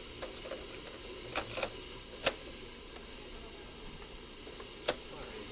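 A handful of sharp plastic clicks and clacks from a Magnavox boombox's cassette deck as a tape is loaded: the cassette set into the well, the cassette door snapped shut, and a transport key pressed on top. The loudest click comes a little over two seconds in.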